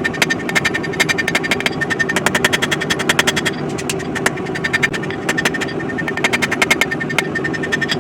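Rapid, machine-paced hammer blows on steel, about eight to ten a second with a metallic ring, broken by a few short pauses, over a steady low rumble.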